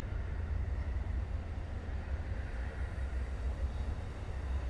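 Amtrak Superliner bilevel passenger cars rolling past close by, a steady low rumble.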